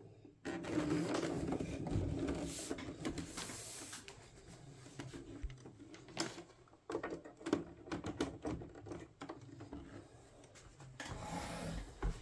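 Handling noise from a plastic boombox being moved and its metal carrying handle worked: a few seconds of rubbing and scraping, then scattered clicks and knocks, and more rubbing near the end.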